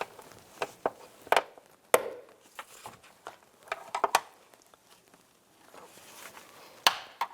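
A plastic trim tool prying at a clipped-in plastic trim cover: irregular clicks, taps and a few sharp snaps as the clips are worked loose.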